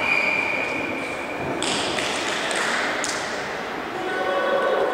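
Referee's whistle blown once as a single steady high note lasting about a second and a half, followed by a sharp knock.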